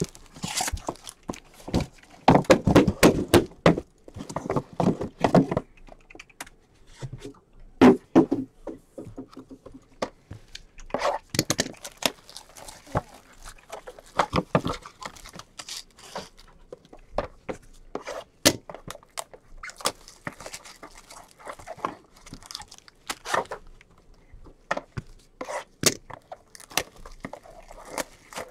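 Cardboard trading-card boxes being taken out of a shipping case and stacked on a table: a run of knocks and thunks as boxes are set down, with cardboard scraping and rustling. The handling is busiest in the first few seconds.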